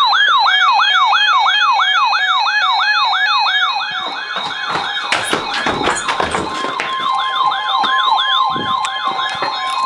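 An electronic siren in a fast yelp, rising and falling about two and a half times a second, with crackling noise joining it about four seconds in. About six and a half seconds in, the steady single-pitch NOAA Weather Radio warning alarm tone starts under the siren.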